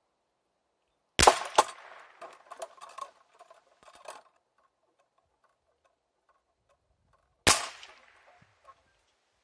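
.22 LR rifle shots from a CZ 457 Varmint, two of them about six seconds apart. A fraction of a second after the first, the bullet strikes a hanging steel target plate, which clinks and rattles for a couple of seconds as it swings.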